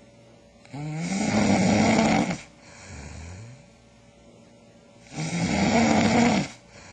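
A person snoring: two loud, rasping snores about four seconds apart, each opening on a rising pitch, with a softer breath out between them.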